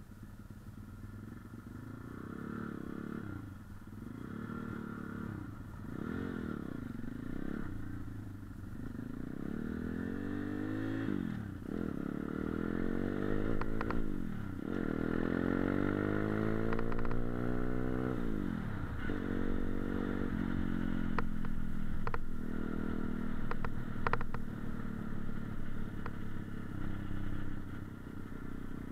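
Motorcycle engine pulling away and accelerating, its pitch climbing and dropping back several times as it shifts up through the gears. It settles to a steadier cruise over the last ten seconds or so, with a few sharp clicks.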